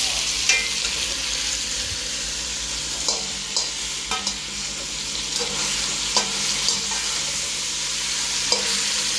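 Pork pieces sizzling steadily as they brown in hot oil in a metal pot. A wire skimmer clinks against the pot several times as the pieces are turned.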